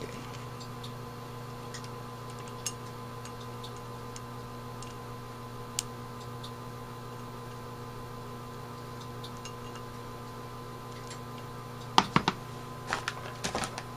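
Steady electrical hum with a few faint ticks while a screwdriver turns the main jet into a carburetor float bowl. About twelve seconds in comes a short cluster of sharp clicks and knocks as the screwdriver is laid down on the bench.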